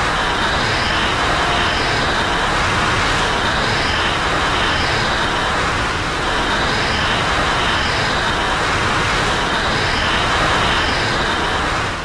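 Godzilla Ultima monster sound effect: a loud, steady rushing rumble with faint high tones pulsing in pairs every couple of seconds.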